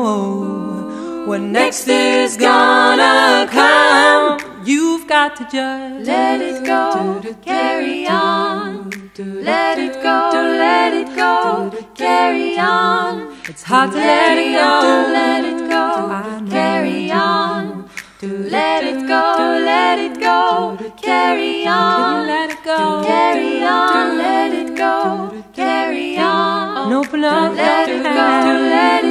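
Background song with singing voices, mostly unaccompanied.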